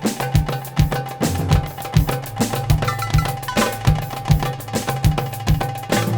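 Solo darbuka music: a fast rhythm of deep bass strokes and sharp, bright rim strokes, several hits a second.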